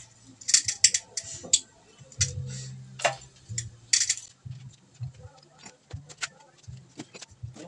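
Irregular sharp metallic clicks and clinks of small hardware and hand tools being handled, bunched in the first two seconds and again around three and four seconds in.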